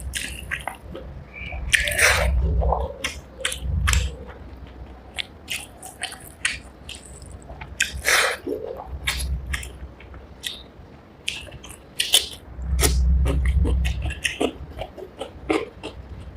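Close-miked eating sounds of rice and spicy fish curry: wet chewing and lip smacks with many short clicks, and a low dull thump every few seconds.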